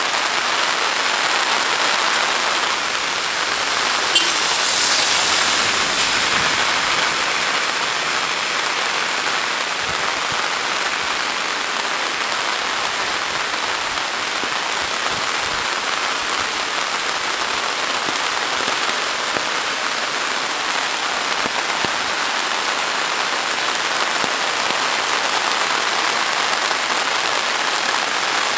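Heavy rain falling steadily on trees, grass and a wet, flooded lane, an even, unbroken hiss of rain. A single brief click about four seconds in.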